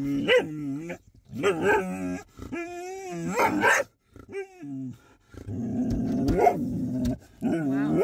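A dog vocalizing: a string of short, wavering whines that rise and fall in pitch, then a longer, rougher growl starting about five and a half seconds in.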